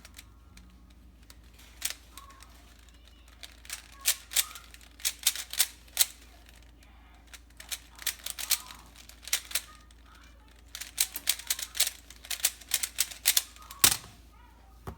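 Cyclone Boys 3x3 speedcube being turned fast: quick plastic clicks and clacks of the layers snapping round, in bursts with short pauses between them, and one sharper knock about a second before the end.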